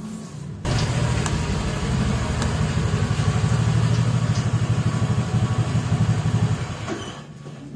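An engine running with a rapid, even pulse. It starts abruptly about half a second in and fades away near the end.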